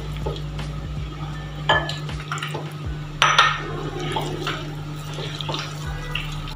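Hands mixing chicken pieces with cornflour and a little water in a glass bowl: wet squishing and crackling, with a couple of sharper knocks against the glass, the loudest about three seconds in.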